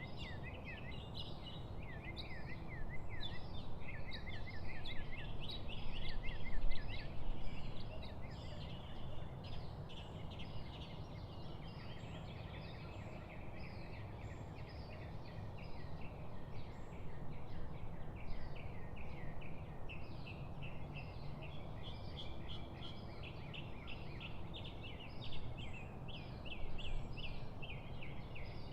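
Many birds singing and chirping continuously, with quick repeated chirps from several birds at once, over a steady low rumble of outdoor noise.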